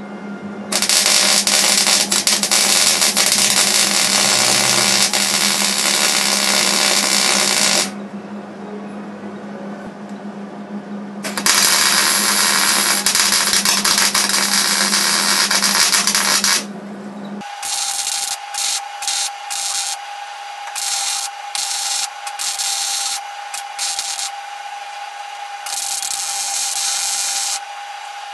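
Electric welding arc on a sheet-steel car floor pan: two long continuous welds of several seconds each, then a run of about nine short spot-weld bursts. A steady whine sits under the short bursts.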